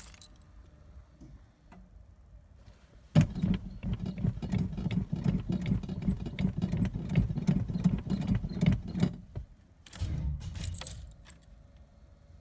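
The starter of a 1990 Chevrolet Suburban cranking the engine in a fast, even rhythm for about six seconds, stopping, then cranking again briefly: a hard start on a weak, 8-plus-year-old battery after the truck has sat a month.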